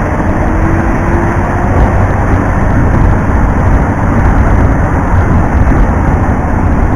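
Steady, loud rumble of wind and road noise picked up by a helmet-camera microphone while riding a motor scooter, with the scooter's engine audible as a faint tone in the first couple of seconds.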